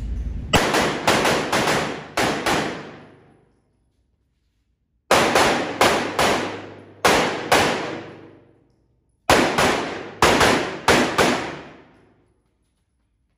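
Handgun fired in three quick strings of about five shots each, a couple of seconds apart, each shot ringing off the concrete walls of an indoor range.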